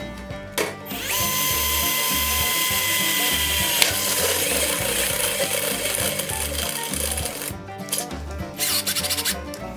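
Power drill driving a step bit through the stainless steel wall of a brew kettle: a steady high motor whine with metal grinding that runs for several seconds, then a few short on-off bursts near the end.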